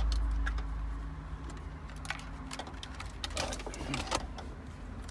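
Light metallic clicks and clinks as shifter cables and their retaining clips are handled, a few scattered taps over a faint low hum. A low rumble fades away in the first second.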